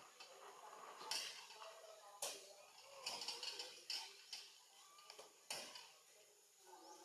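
Faint scattered sharp clicks and light taps, four or five in all, with faint short wavering tones between them.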